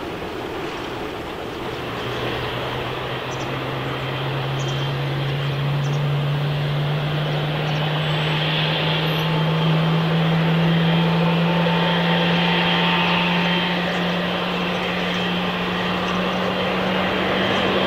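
Jet airliner engines: a rushing noise that slowly grows louder, with a low hum rising steadily in pitch.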